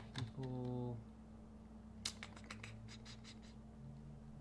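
Computer keyboard typing: a quick run of keystroke clicks about two seconds in, then a few more, over a faint steady hum.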